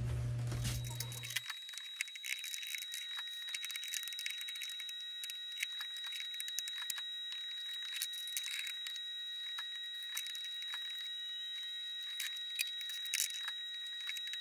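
Quick clinks and rattles of stainless steel feeding bowls and food being handled, played back sped up so the clatter sounds thin and high, over a faint steady high tone.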